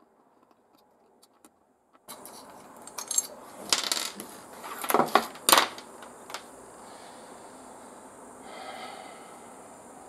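Near silence for about two seconds. Then small hard objects click and clatter on a workbench in a quick run of sharp clinks, loudest about five seconds in, followed by a steady low hiss.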